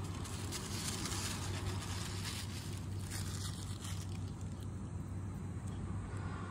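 Steady low hum of distant city traffic, with no distinct events standing out.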